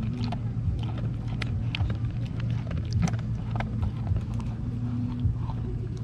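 A dog eating food from a hand, with irregular wet clicks of chewing and licking. A steady low hum runs underneath.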